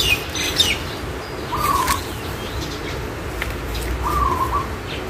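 Birds calling: a quick run of high chirps at the start, then two short warbling calls about two and a half seconds apart, over a low background rumble with a few faint clicks.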